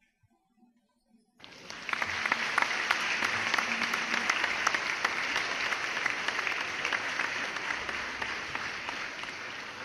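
Audience applauding, many hands clapping at once. It starts suddenly about a second and a half in and eases slightly near the end.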